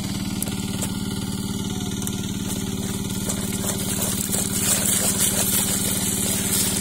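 A small engine idles steadily throughout. From about four and a half seconds in, water splashes as live fish thrash in a wicker basket on wet mud.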